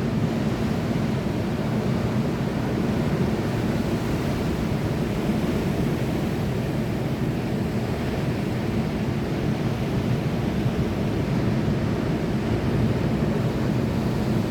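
Sea surf making a steady, even low rush, with no separate wave breaks standing out.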